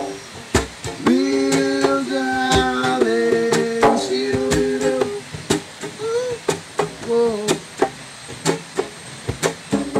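Acoustic guitar strummed in a regular beat, with a man singing long held notes over it.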